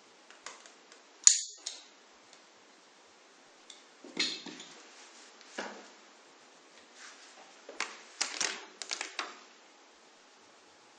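Irregular sharp plastic clicks and taps from handling an optical fiber fusion splicer and its fiber clamps and covers while a fiber is loaded. There is a loud single click about a second in and a rapid cluster of clicks near the end.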